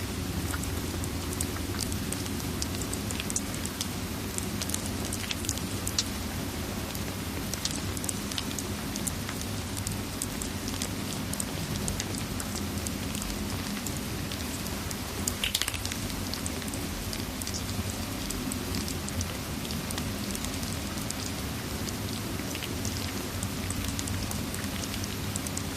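Ambience of steady rain with a crackling fireplace: a continuous hiss with many small pops and clicks, and a slightly louder burst of crackles a little past halfway.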